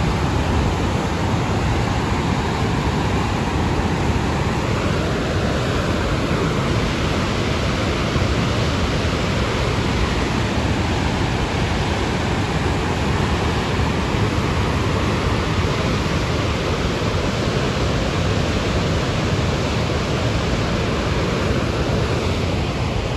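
Steady rushing of a swollen river in flood, thick with mud and stones.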